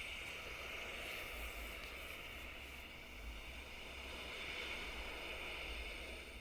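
Recorded ocean waves washing on a shore, a steady hiss that swells and eases slowly.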